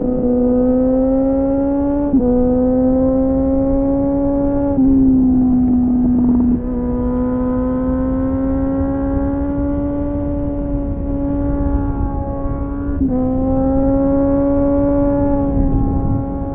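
Suzuki GSF600 Bandit inline-four running through an aftermarket slip-on exhaust with a home-made dB killer, heard onboard while riding. The engine's pitch climbs slowly, dips a little about 2, 5 and 13 seconds in, and the sound gets quieter from about six and a half seconds in.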